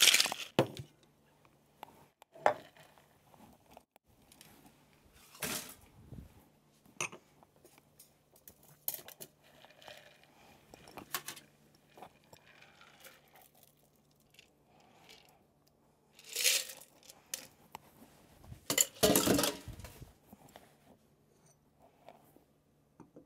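Cocktail-making clatter: the ice rattle of a metal shaker tin stops in the first moment, then come scattered clinks and knocks of the tin, ice and a fine-mesh strainer as the drink is double-strained into a coupe glass. There are a few louder clattering bursts, the biggest in the second half.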